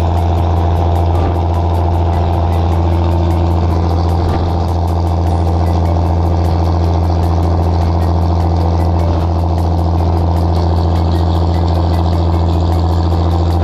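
Boat engine running steadily at constant speed, with a strong deep hum.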